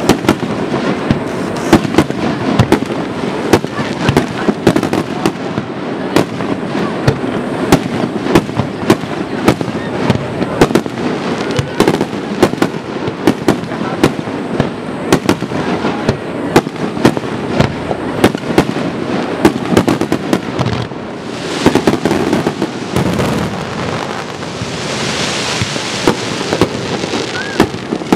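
Fireworks display in a dense, continuous barrage: aerial shells bursting several times a second over a steady rumble, with a hissing crackle in the last few seconds.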